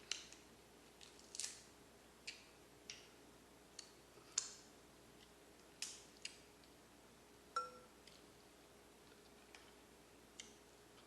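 Kitchen scissors snipping and cracking through crab or lobster shell: about a dozen short, sharp clicks spread irregularly over several seconds, one with a brief clink.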